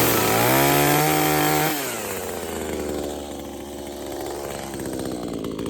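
Husqvarna two-stroke chainsaw held at full throttle, cutting a diagonal cut through a palm frond. A bit under two seconds in, the revs drop back and the saw idles steadily.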